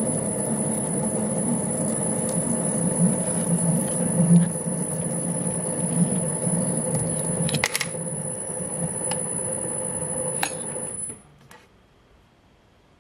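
Homemade metal lathe running, with a steady high whine over a hum and a few sharp clicks. It stops abruptly about eleven seconds in.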